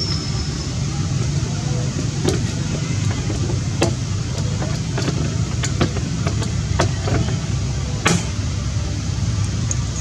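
A steady low rumble, like an engine running, with scattered sharp clicks and ticks over it; the loudest click comes about eight seconds in.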